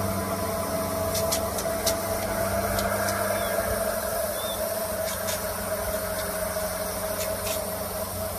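A steady mechanical hum at an even pitch, with a few short light clicks over it.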